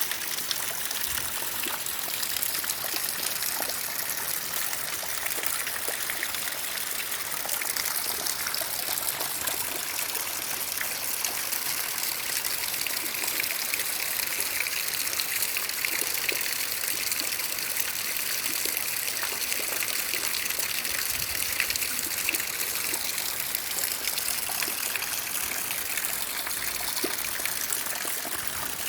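Water trickling and splashing steadily, a continuous even rush dotted with many small droplet ticks.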